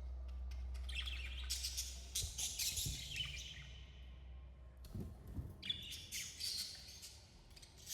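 Budgerigars chirping and warbling in quick, busy runs, with a pause in the middle. A steady low hum sits under the first two seconds.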